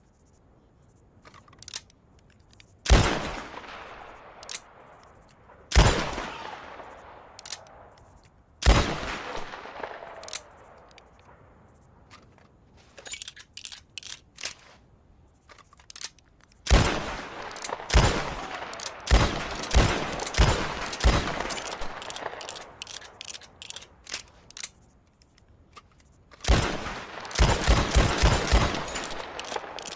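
Smith & Wesson revolver shots: three single shots about three seconds apart, each with a ringing echo, then a few light clicks, then quicker strings of shots, the last a rapid run of about eight shots near the end.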